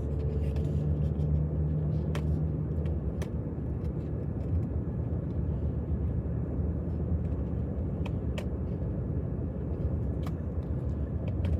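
Steady low rumble of a car cabin in motion, with a few light sharp clicks scattered through it, about two seconds, three seconds, eight seconds and ten seconds in.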